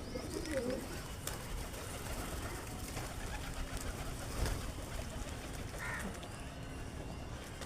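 Pigeons cooing, most clearly in the first second, with a few short sharp taps among them.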